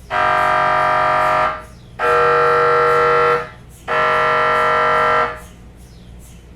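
MRI scanner buzzing in three steady bursts of about one and a half seconds each, with short gaps between: the gradient coils pulsing during a scan sequence.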